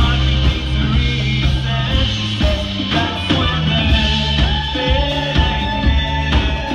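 Live band playing a song: male lead vocal over electric guitar, drum kit and keyboard, heard from within the audience.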